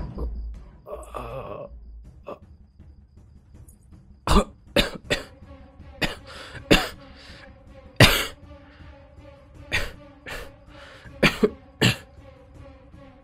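A man coughing hard in a string of about ten sharp, irregular coughs, starting about four seconds in, over a faint, steady music drone.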